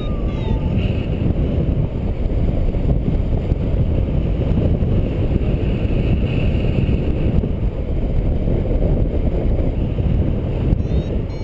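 Steady, low wind rumble buffeting the microphone of a paraglider pilot's camera in flight.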